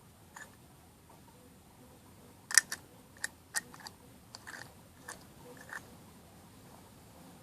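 Metal combination padlock being handled: a run of irregular sharp clicks and rattles, the loudest about two and a half seconds in.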